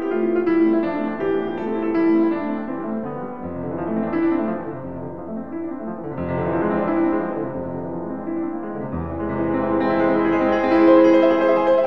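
Background piano music: held chords over a bass line that comes in a few seconds in.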